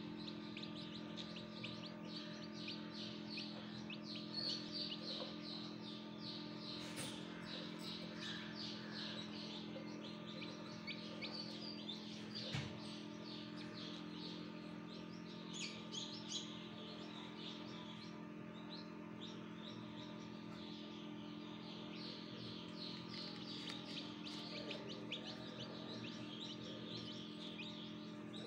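Newly hatched chicken chicks peeping: a continuous run of short, high, falling peeps, several a second.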